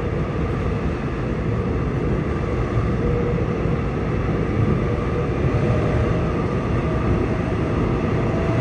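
Seoul Subway Line 6 train with Mitsubishi IGBT-VVVF traction running between stations, heard from inside the car: a steady rumble of wheels on track with a faint steady hum of the motors above it.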